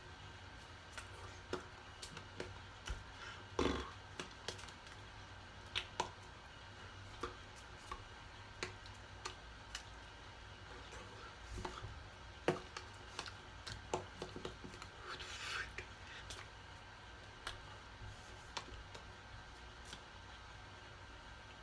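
Hands and sleeves of a person signing: irregular soft taps, claps and rustles as fingers and palms touch each other, the face and the shirt, over a low steady room hum.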